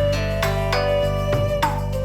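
Background music: gentle instrumental tune with plucked or keyboard notes over a steady bass.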